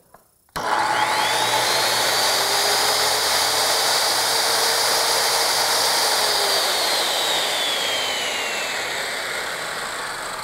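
Corded circular saw switched on about half a second in and running free with no cut: its motor whine climbs quickly to full speed, holds steady for about five seconds, then the trigger is let go and it winds down slowly with a falling whine.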